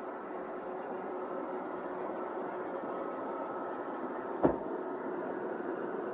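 iRobot Roomba 770 robot vacuum running: a steady whir of its vacuum motor and brushes with a high steady whine, and a single sharp knock about four and a half seconds in.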